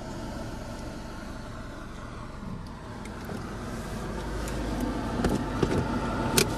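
Steady low engine rumble heard from inside a car aboard a car ferry, with a few scattered clicks in the second half and a sharp click shortly before the end.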